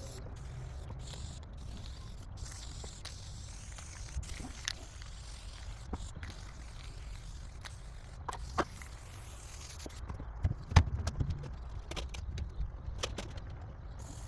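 Aerosol spray paint can hissing in passes that break off briefly, the hiss weakening about ten seconds in, over a low wind rumble on the microphone. A few sharp clicks, the loudest a little after ten seconds.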